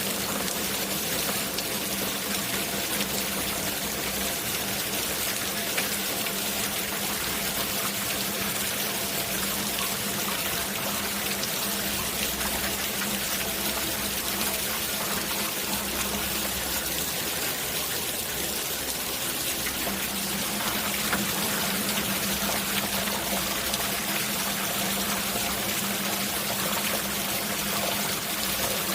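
Steady rain falling, with water trickling and running. A low, steady hum underneath drops out for a few seconds past the middle and then returns.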